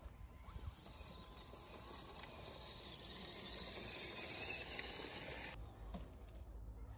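Radio-controlled 6x6 crawler truck driving through tall grass: a hissing rustle that grows louder as it passes close, then stops abruptly near the end.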